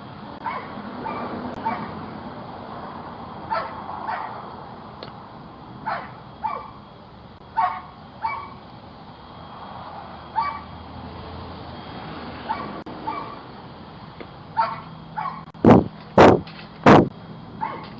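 Goats bleating again and again in short calls, heard through a doorbell camera's microphone. Near the end come three loud knocks in quick succession, close to the microphone.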